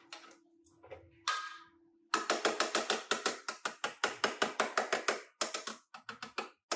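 A steady hum with a few scattered clicks, then from about two seconds in a quick, even run of sharp taps from hand-tool work on the car, about six a second, which thins out to a few separate taps near the end.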